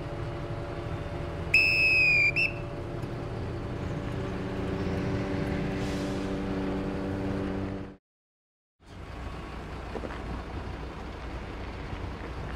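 Whistle signal of one long blast and one short blast, the crane signal for slewing left, sounded about one and a half seconds in over a steady engine hum. The sound cuts out briefly near eight seconds, and wind noise on the microphone follows.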